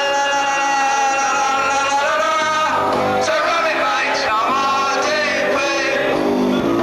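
A man singing into a handheld microphone over musical accompaniment, amplified through a PA in a large hall, holding long notes.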